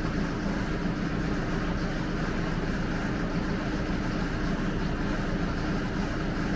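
Steady mechanical hum with a low drone and an even rushing noise, like a running fan or small motor, with no change in level.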